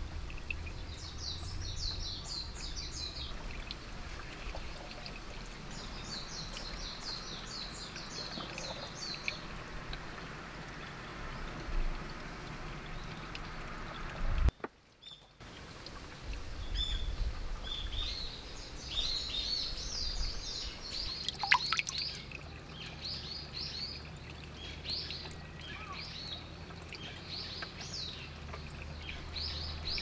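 Small birds singing in quick, repeated chirping phrases over a faint trickle of water from a small spring, with a brief break about halfway through.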